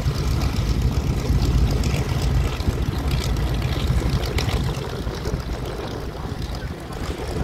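Boeing B-17G Flying Fortress's four Wright Cyclone radial engines running as the bomber makes a low pass, a deep sound that eases off a little in the second half as it moves away. Wind is buffeting the microphone.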